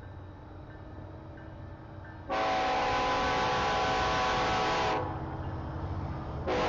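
Locomotive horn blowing a chord of several tones, one long blast of nearly three seconds, then a second long blast starting near the end, over the low rumble of an approaching train.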